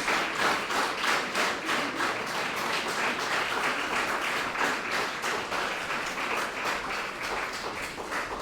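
Audience applauding, the clapping easing off gradually toward the end.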